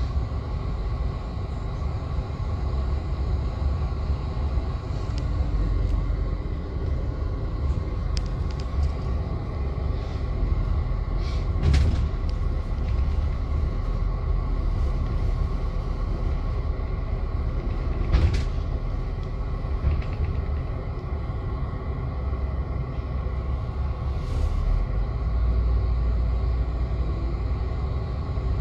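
Greyhound coach heard from inside the cabin while driving: a steady low rumble of engine and road noise, with two sharp knocks, about 12 and 18 seconds in.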